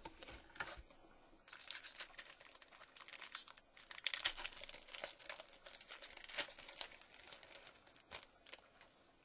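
Foil wrapper of a Topps Chrome football card pack crinkling and crackling as it is torn open, a dense run of crackles starting about a second and a half in and dying away near the end.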